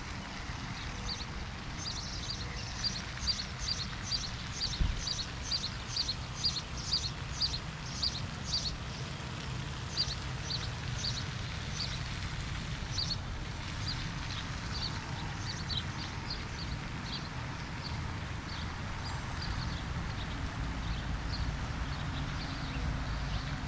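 A songbird calling over and over in short high chirps, about two a second, for the first dozen seconds. The calls then go on fainter and more spaced out, over a low steady rumble.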